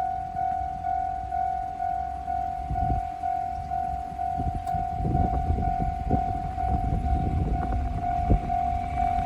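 Japanese railway level-crossing warning bell ringing, a steady electronic ding repeating about twice a second. A low rumble builds up under it from about halfway through.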